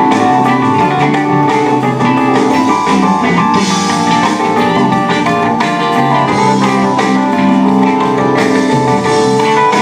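Live band playing: electric guitar over drums and keyboard.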